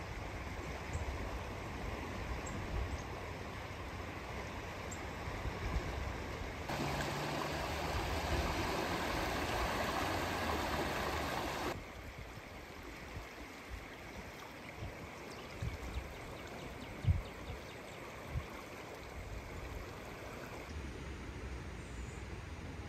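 Floodwater from a swollen creek running over and beside a road: a steady rush of water, louder for about five seconds in the middle before dropping back. A few low thumps come later.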